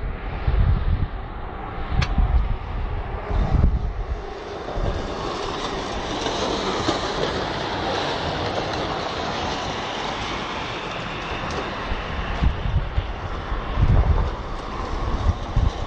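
Steady rushing rumble of passing vehicle traffic, with wind buffeting the microphone near the start and again near the end.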